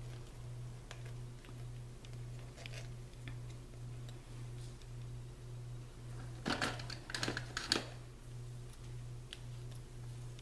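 Hands tying a bow of thick baker's twine on a plastic treat bag, making light clicks and rustles, with a few louder crinkles from about six and a half to eight seconds in. A low hum pulsing about twice a second runs underneath.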